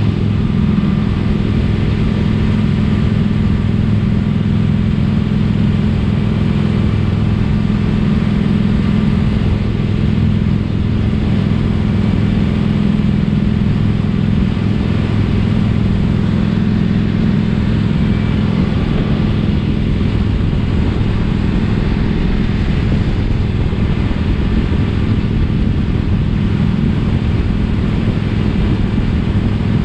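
Motorcycle engine running at a steady pitch while riding at an even speed, with road noise, and no change in revs.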